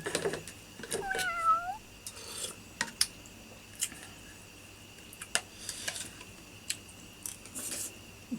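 A single short animal call about a second in, dipping in pitch and then rising again, among scattered light clicks and taps of eating utensils, over a steady high-pitched hum.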